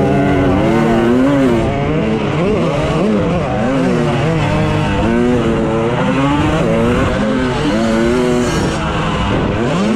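Two-stroke motocross bike engine revving hard and easing off over and over, its pitch swooping up and down about once a second as the throttle opens and closes.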